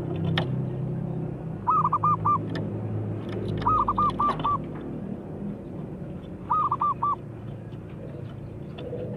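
Zebra dove (perkutut) cooing: three short bouts of quick, evenly repeated notes, three to five notes each, a couple of seconds apart, over a steady low background hum.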